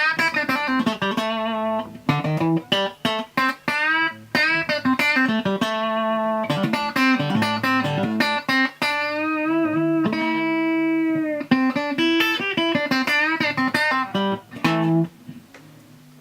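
Electric guitar played through an amp with a Boss CS-2 compressor/sustainer pedal: picked single notes and chords that ring on, some notes bent up and down in pitch. The playing stops about a second before the end.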